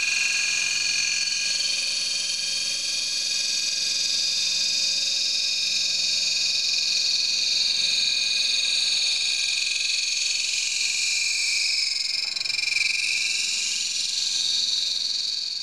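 11V9 CBN cup wheel at about 700 RPM grinding along the edge of a small paper cutter blade on a finish pass: a steady, high-pitched grinding hiss with a few whistling tones in it.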